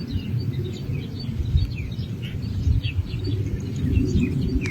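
A small bird calling over and over: a quick run of short, high chirps, each sliding downward, several a second, over a low, uneven rumbling noise.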